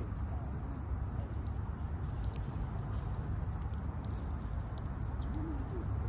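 Insects singing in a steady high-pitched drone over a low rumble, with a few short chirps from house sparrows feeding on seed.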